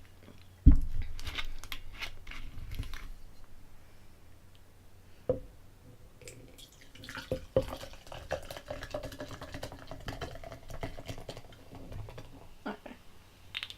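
A thump about a second in, then a drink being poured into a glass: a faint pouring tone that rises slightly as the glass fills, with small clicks and splashes.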